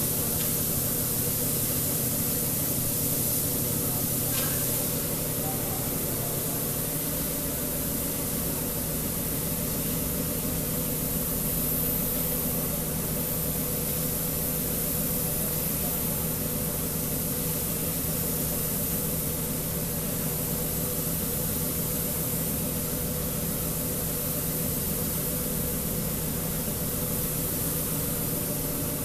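Compressed-air paint spray gun hissing steadily as paint is sprayed onto a car body, over a steady low machine hum.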